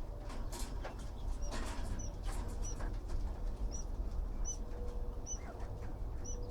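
Newborn nestling bird giving about seven short, thin, high-pitched peeps, each rising and falling, spaced a little under a second apart from about a second and a half in, with faint rustling and a low steady hum underneath.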